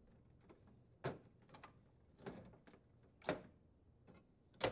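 A few faint plastic knocks and clicks from a refrigerator water filter cartridge being twisted into its housing and its hinged filter cover being swung shut, about one a second, the last near the end the sharpest.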